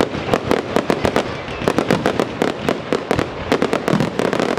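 Fireworks going off in a rapid, continuous barrage of sharp bangs, several a second.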